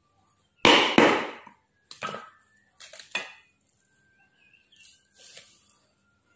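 A block of wood striking the back of a knife blade laid across a coil of nylon fishing line on a wooden chopping board, driving the blade through the line. Two hard knocks close together about half a second in, then a few lighter knocks over the next two and a half seconds.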